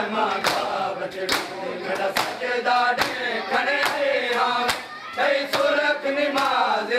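Men's voices chanting a nauha in unison, with sharp hand slaps on bare chests (matam) landing in time, roughly one a second.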